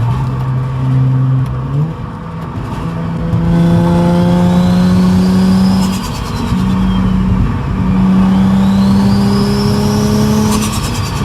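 Nissan G35's VQ35DE V6 with a rear-mounted turbo under hard acceleration: the revs climb in pulls and drop back at the gear shifts. A high turbo whistle rises with each pull and falls away after it.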